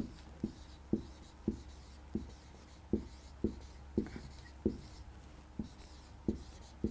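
Marker pen squeaking and tapping on a whiteboard as words are written, in short separate strokes about two a second, over a faint steady low hum.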